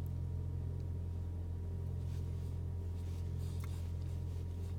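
Steady low drone of a car's engine and tyres heard from inside the cabin while driving slowly.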